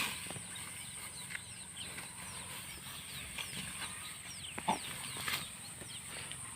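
Many short, quickly falling bird chirps, scattered throughout, over a steady high-pitched insect drone, with a few soft clicks.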